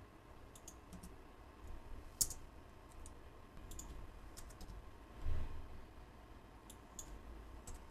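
Scattered keystrokes on a computer keyboard, irregular and light, with one soft low thump about five seconds in.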